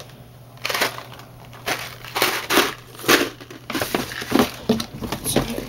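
Plastic packaging and a plastic bag crinkling and crackling in irregular bursts as items are handled and rummaged through. It starts under a second in.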